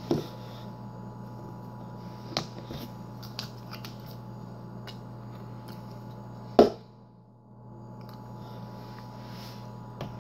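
A handheld plastic spitter bottle with a flip cap being handled: a few clicks and knocks, the loudest a sharp knock about six and a half seconds in, over a steady electrical hum.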